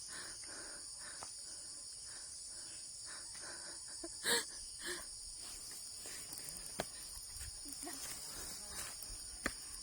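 Insect chorus: a steady high-pitched buzz and trill. About four seconds in a short louder burst comes twice, and a couple of sharp clicks come later.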